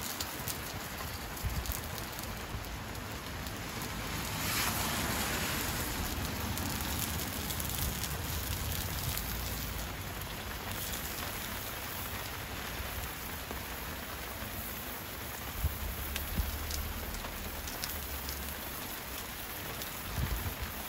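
Steady rain hiss, with scattered faint crackles from a wood fire burning in a small grill. The hiss swells louder for a couple of seconds about four seconds in.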